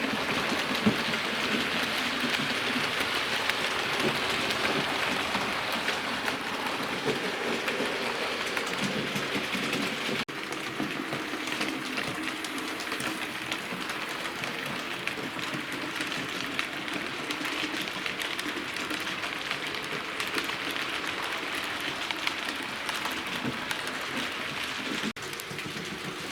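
Hornby model Tornado locomotive running on a model railway track with its coaches: a steady whirr and rattle of the motor and wheels on the rails. The sound dips briefly twice, about ten seconds in and near the end.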